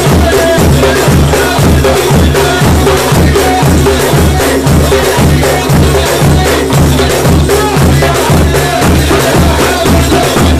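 Sufi dhikr: a group of men chanting in a steady rhythm, about two beats a second, to hand-struck percussion.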